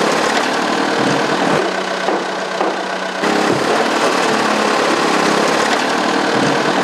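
Diesel engines of road-works machinery, a backhoe loader and trucks, running steadily at idle: a continuous engine drone. The sound changes abruptly twice in the first few seconds.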